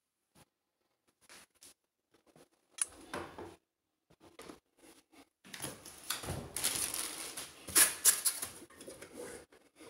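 Hands handling a metal voltage stabilizer and its power cable: scattered light clicks and taps, then a few seconds of busier rustling and scraping from about halfway through, loudest near the end.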